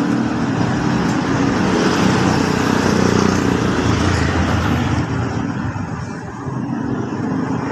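Motor vehicle engines running steadily, with road traffic noise.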